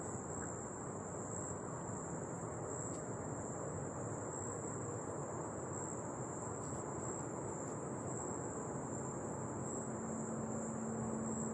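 Crickets trilling steadily and high-pitched, over a steady low rush of woodland background noise. Near the end a low steady hum comes in.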